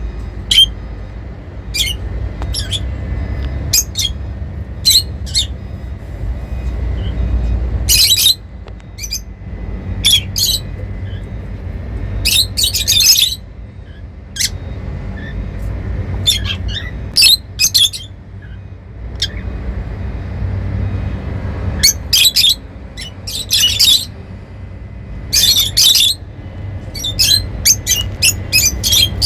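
Lovebirds chirping and squawking in short, sharp, high-pitched calls. Some come singly and some in quick runs lasting about a second, over a steady low hum.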